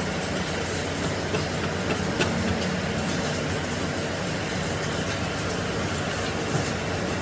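Steady mechanical noise with a low hum and a few light clicks.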